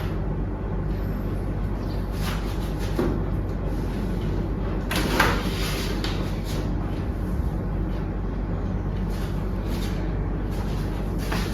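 Steady low hum with a few brief rustling, shuffling noises over it, the loudest about five seconds in, from a patient being handled and shifted on a treatment table.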